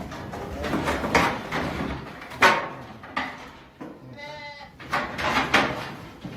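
Sheep bleating, one clear wavering call about four seconds in, amid thumping and rattling, with a sharp knock about two and a half seconds in.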